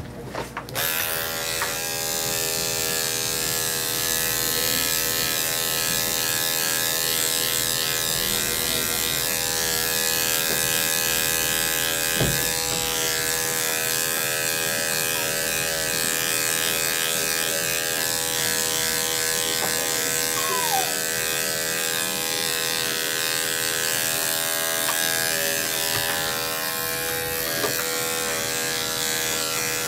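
Corded electric dog clipper with a #10 blade running in a steady hum as it shaves a dog's curly coat short.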